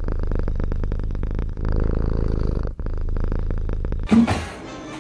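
Domestic cat purring, a steady fast rumble broken by short pauses at each breath; it stops about four seconds in.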